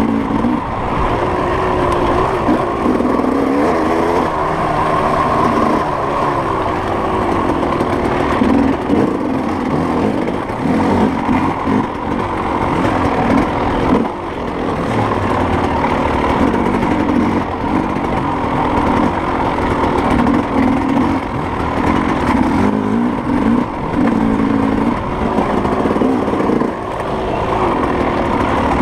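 Off-road dirt bike engine running hard through a race, its pitch rising and falling constantly with the throttle.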